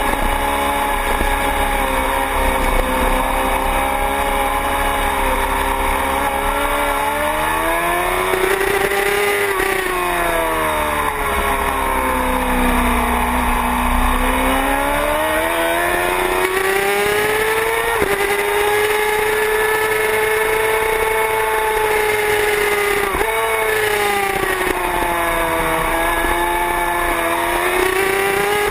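Sport motorcycle engine at track speed, heard from a camera on its tail over low wind noise. The revs hold steady, rise, then ease off to a low point near the middle. They climb again and hold high, drop abruptly once, and climb again near the end.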